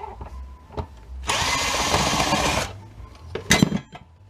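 Power drill/driver running for about a second and a half, backing out a screw from a metal electrical switch box, followed about a second later by a few sharp knocks.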